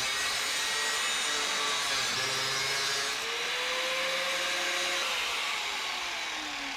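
Reciprocating saw (Sawzall) with a blade not made for metal, cutting through a metal tube with a continuous rasping buzz. The motor's pitch falls over the last couple of seconds as the saw slows.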